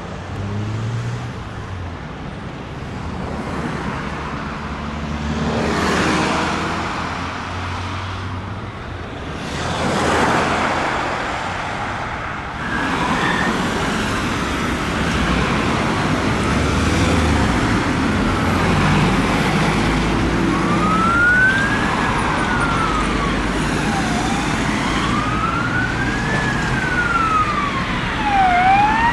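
Emergency vehicle siren wailing in slow rising and falling sweeps, coming in about two-thirds of the way through over city traffic. Before it, vehicles pass by on the road.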